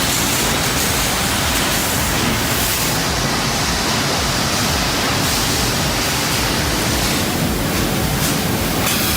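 Sawmill machinery cutting logs into panels: a loud, steady rushing noise with no distinct pitch.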